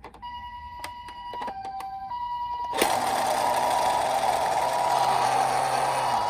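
Toy ambulance's electronic two-tone siren, switching between a higher and a lower note, with scattered plastic clicks. About three seconds in, a loud rattling whir starts suddenly as the toy runs down the slope.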